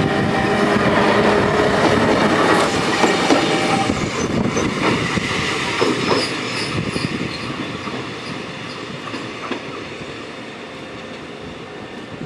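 Kotoden retro electric railcar No. 300 rolling slowly past over yard tracks and points, its wheels clattering and knocking over the rail joints. The noise is loudest in the first few seconds and fades steadily as the car moves away.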